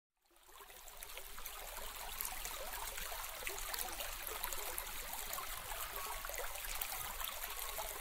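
Running water: a steady rush of many small splashes and trickles, fading in over the first couple of seconds.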